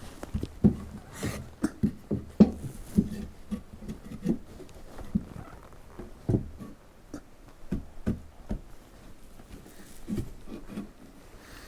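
Irregular soft knocks and thumps, one or two a second and uneven, from handling and adjusting parts on a sawmill bed such as its log stops.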